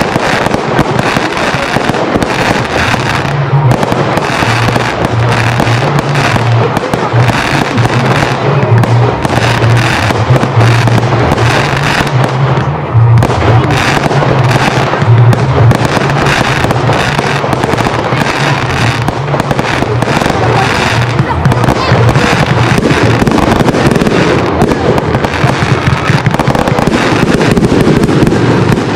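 Aerial fireworks display, shells going off in a dense, continuous barrage of bangs and crackles. A steady low drone sits underneath from a few seconds in until near the end.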